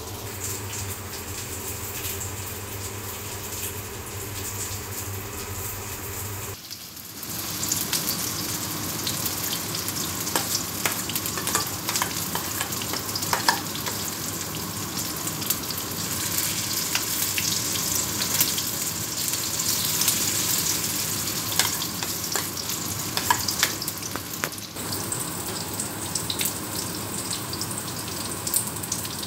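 A steady low hum for the first few seconds. Then minced patties sizzle in hot oil in a wok, a dense crackle with frequent sharp pops of spattering oil.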